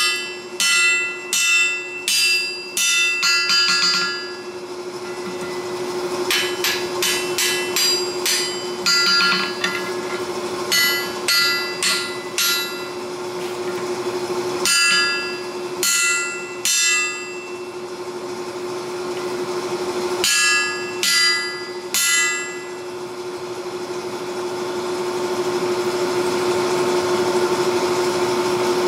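Forging: bursts of ringing metal-on-metal hammer blows on steel, several to a burst with pauses between, over a steady machine hum. Strikes stop after about 22 seconds, leaving the hum, which grows louder near the end.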